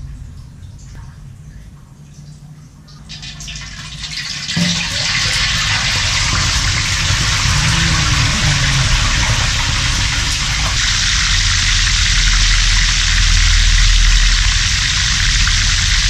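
A whole tilapia goes into hot oil in a wok about four seconds in, setting off loud, steady frying sizzle that carries on to the end.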